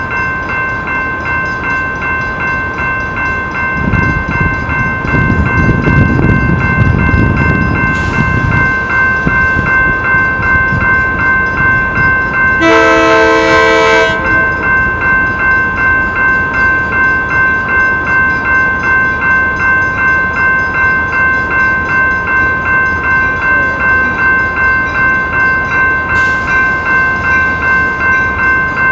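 An approaching Amtrak passenger train sounds one horn blast of about a second and a half, roughly halfway through, over a warning bell that rings steadily, pulsing about twice a second. A low rumble swells for a few seconds from about four seconds in.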